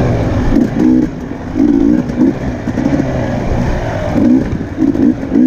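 Off-road dirt bike engine revving in short bursts, its pitch rising and falling several times as the throttle is opened and closed.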